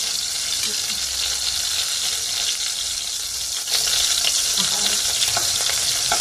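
Marinated chicken pieces shallow-frying in hot oil in a wok, a steady sizzle. It grows louder about two-thirds of the way through as tongs turn the pieces over.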